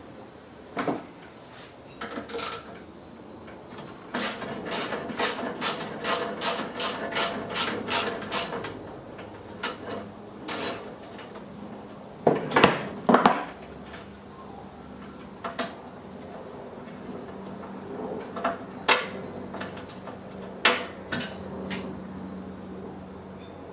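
Hand tools working the bolts that hold a ride-on mower's discharge chute: a run of quick metallic clicks, then a few louder metal clanks and scattered clinks as the three bolts are undone.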